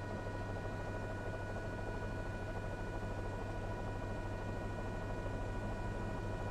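Steady hiss and low hum with a few thin, steady high whining tones, the constant background noise of a news helicopter's onboard audio in flight.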